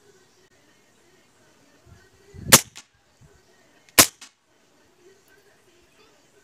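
Hatsan BullMaster semi-automatic .22 PCP air rifle firing: two sharp shots about a second and a half apart, then a third right at the end.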